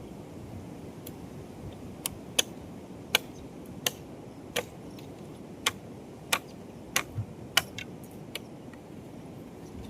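About a dozen sharp knocks or taps at an uneven pace, one every half second to a second, starting about two seconds in and stopping near the end, over a steady low rushing background.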